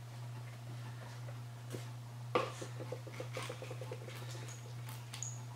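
A plastic bottle of 90-weight gear oil being opened and handled at a mower deck's gear case: a sharp click, then a quick run of small ticks, about ten a second, and a few brief high squeaks near the end.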